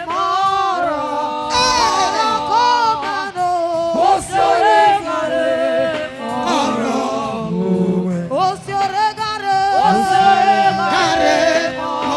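Voices singing a church song, with wavering held notes.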